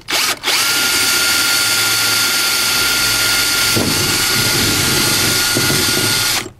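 DeWalt cordless drill with a 17/64-inch bit running steadily, reaming out a pin hole through the leaning post's metal support tube. A steady motor whine follows a brief burst at the start, rougher for a moment a little past the middle, and stops just before the end.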